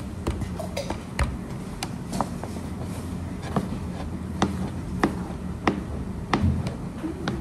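Irregular light taps and clicks of hands handling pieces of dumpling dough on a plastic cutting board, over a steady low hum.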